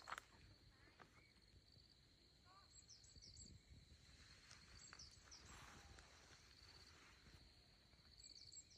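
Near silence: faint rural outdoor ambience with scattered short bird chirps over a thin, steady high trill.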